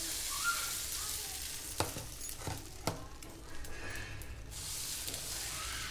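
Dosa batter sizzling on a hot tawa as it is poured on and spread with a steel ladle, with three sharp clicks of the ladle against the pan about two to three seconds in.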